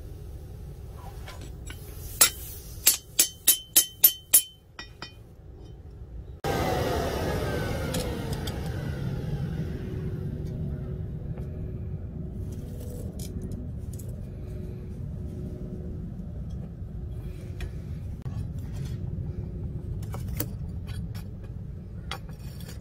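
A hammer strikes the 5160 leaf-spring steel blade on an anvil: about seven sharp, ringing blows in quick succession, then a couple of lighter taps. After that comes the steady low rumble of a blower-fed forge fire while the blade heats to an orange glow.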